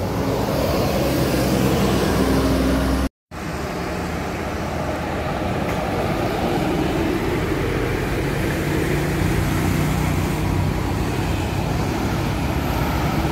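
Diesel coaches and a truck driving past, their engines running in a steady drone with road noise. The sound cuts out briefly about three seconds in.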